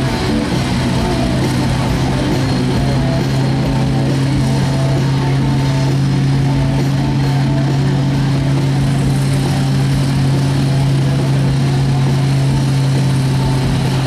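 Gasoline V8 or six of a stock 1983 Chevy pickup running under load at steady revs as it drags a weight-transfer sled down a pulling track; the engine note holds constant with no rise or fall.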